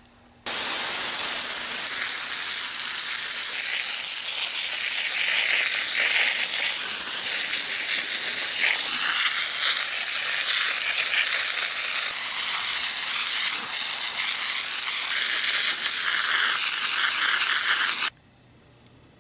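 Loud, steady hissing with a sizzling texture that cuts in about half a second in and stops abruptly near the end.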